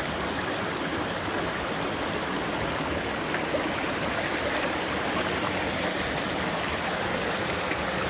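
Shallow rocky stream running over stones and small cascades: a steady, even rush of water.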